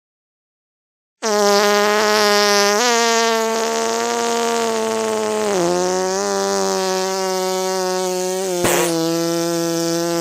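One long, buzzy fart noise held at a fairly steady pitch, starting about a second in; it steps up slightly about three seconds in, drops lower halfway through, and has a brief click near the end.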